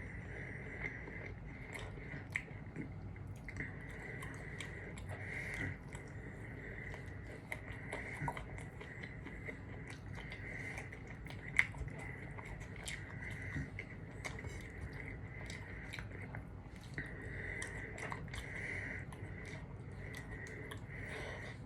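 A person chewing and biting food, with many small wet mouth clicks and one sharper click about halfway through.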